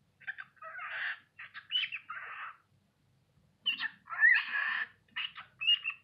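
Cockatiel chattering in mimicked, speech-like talk: two runs of short, quick syllables about a second apart.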